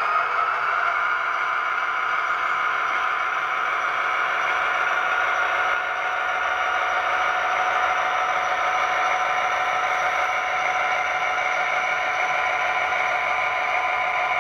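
HO-scale SD70ACe model locomotive running, its Tsunami 2 sound decoder playing a steady diesel engine sound through the model's small speaker, with light clatter of the running gear on the track.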